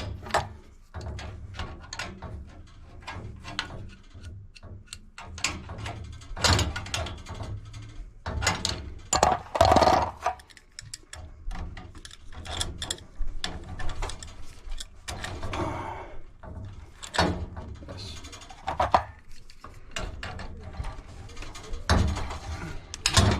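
Irregular metal clicks, clanks and scrapes of a hand tool and pipe fittings being worked while a compression fitting is set and tightened on a water heater's supply pipe.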